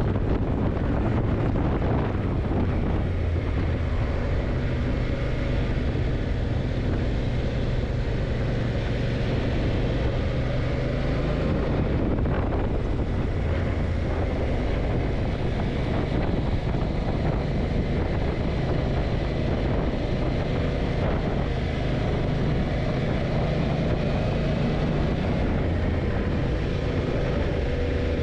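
Yamaha TDM900's parallel-twin engine running steadily as the motorcycle rides along, with wind rushing over the microphone. The engine note changes about twelve seconds in.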